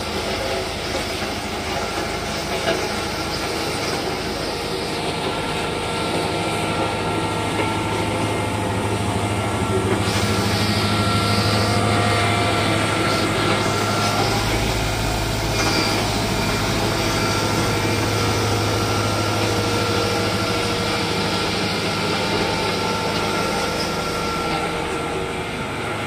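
JCB VMT860 tandem road roller's diesel engine running steadily with a constant low hum as the roller drives its steel drums over loose crushed-stone base. A deeper rumble joins in briefly about midway.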